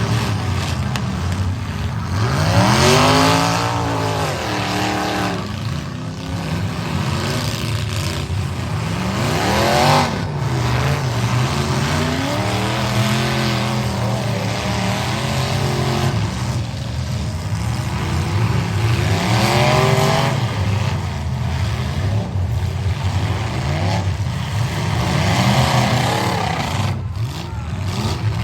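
Several demolition derby trucks' engines running loud and revving up and down again and again, with a sharp bang about ten seconds in that fits a collision.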